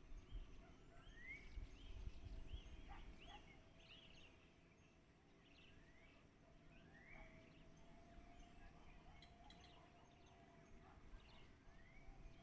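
Faint bird calls: short rising whistled notes repeated every few seconds, mixed with brief chirps, over a thin steady hum, with a low rumble in the first few seconds.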